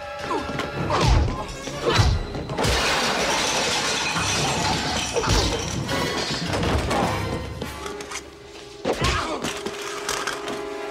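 Fight-scene sound effects over a film score: a few heavy blows and thuds, then a long, dense stretch of things smashing and shattering, and another hit near the end.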